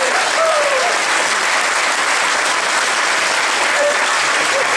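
Large audience applauding steadily, with a few voices calling out in the first second.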